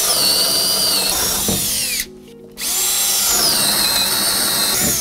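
Power drill boring a 1¼-inch hole through a 2x4 wood stud, its motor whine dropping in pitch as the bit bites into the wood. It stops about two seconds in and starts again half a second later.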